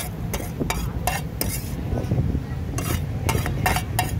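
Metal utensil clinking and scraping against a metal cooking pan: a series of sharp clinks, about two to three a second, with a short pause about two seconds in, over a steady low rumble.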